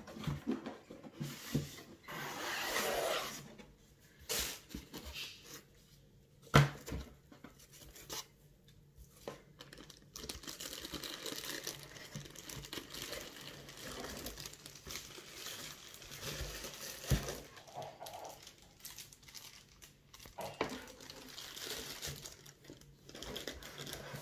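Plastic packaging crinkling and tearing as the boxed parts of a CPU liquid cooler are unwrapped, with a couple of sharp knocks.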